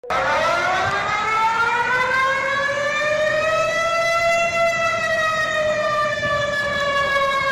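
Civil defense warning siren starting up: its pitch rises over the first few seconds, then slowly falls.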